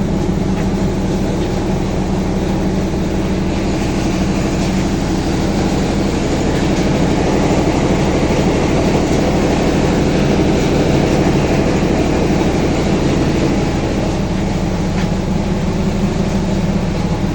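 Maize grinding mill (posho mill) running with a steady, loud mechanical drone and low hum.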